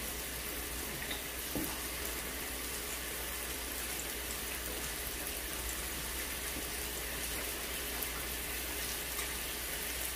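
Meat sizzling steadily on a tabletop electric grill plate, with a couple of faint clicks about a second and a half in.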